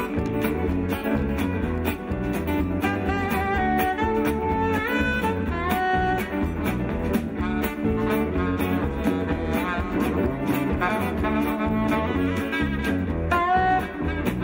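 Live band playing an instrumental passage: saxophone and fiddle over drums, bass and acoustic guitar, the lead line sliding and bending in pitch.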